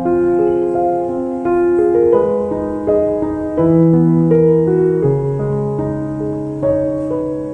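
Piano music: a melody of held notes changing every half second or so.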